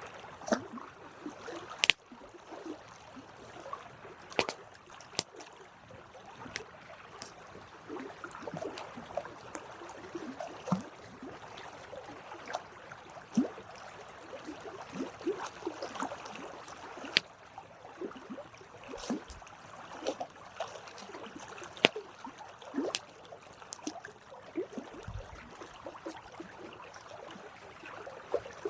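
Wood campfire crackling steadily, with irregular sharp pops, the loudest about 2, 4½, 5 and 22 seconds in.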